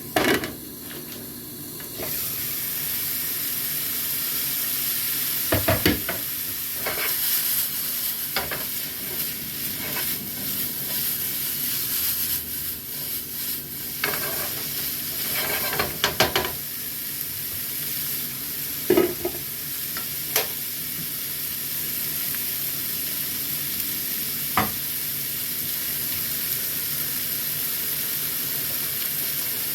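Food sizzling in a pan, a steady high hiss that starts about two seconds in, with scattered knocks and scrapes of a utensil stirring it.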